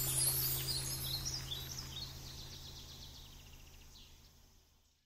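Small birds chirping with short falling calls over a low steady hum, the whole sound fading steadily away to silence near the end.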